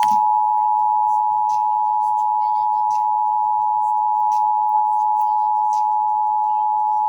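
Emergency Alert System attention signal: the steady two-tone alarm heard over AM radio, marking the start of a required monthly test. It holds one unchanging chord and cuts off suddenly near the end.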